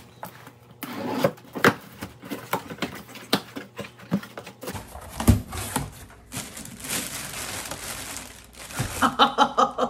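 A cardboard box being opened by hand: stiff flaps bending and rustling and tape being cut with scissors, in a string of short scrapes and clicks, with a louder knock about five seconds in. A short pitched vocal sound comes near the end.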